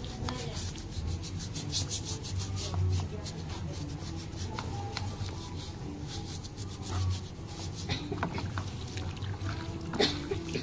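Hands rubbing and scrubbing wet feet in a basin of water, a run of quick irregular rubbing strokes with light splashes.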